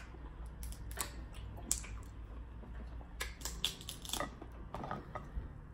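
King crab leg shell being cracked and pulled apart by hand: irregular sharp cracks and clicks, coming thickest about three to four seconds in.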